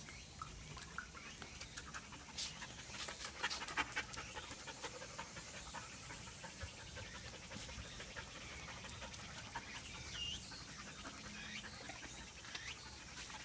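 Dogs panting, with scattered light clicks in the first few seconds and one short high squeak about ten seconds in.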